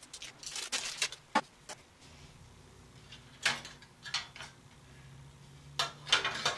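Handling noise from a hard drive being fitted into a metal computer case: scattered light clicks and knocks, one sharper click about a second and a half in, and brief rustling bursts.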